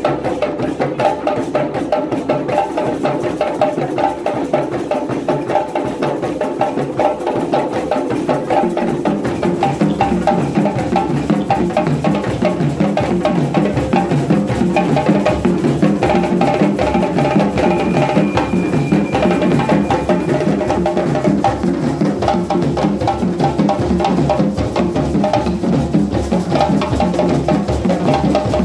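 A group of djembes played by hand, many drums struck together in a dense, continuous rhythm.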